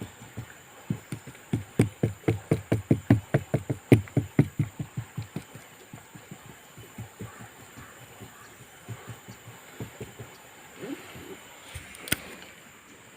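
A rapid run of dull knocks, about four a second, that slows and fades after about five seconds into scattered weaker knocks, with one sharp click near the end.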